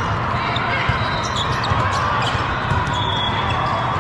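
Echoing din of a large indoor volleyball tournament hall: many voices mixed with frequent ball hits and bounces from numerous courts, and a few short high squeaks.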